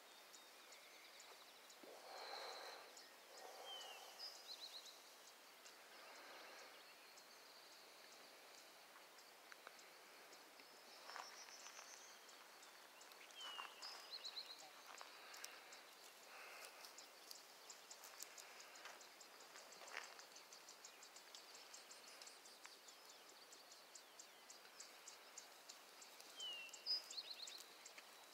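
Near silence: faint rural outdoor ambience. A short high chirping phrase comes three times, about ten seconds apart, with scattered faint ticks and rustles.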